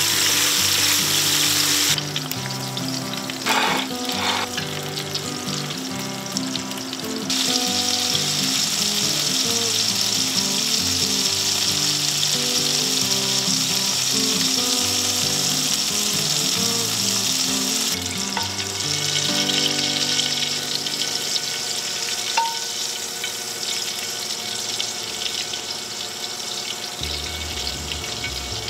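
Food sizzling in a hot frying pan: a steady hiss that shifts in level at a few edits, with a couple of clicks about four seconds in. Light background music plays underneath.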